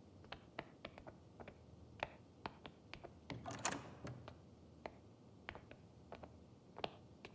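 Faint footsteps clicking irregularly on a stone-tiled floor, with a short rustling noise, louder than the steps, about three and a half seconds in.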